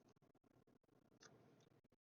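Near silence: room tone, with one faint short click a little over a second in.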